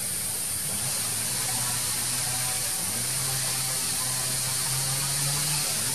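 Steady high-pitched hiss with a low droning hum underneath that steps up slightly in pitch about halfway through.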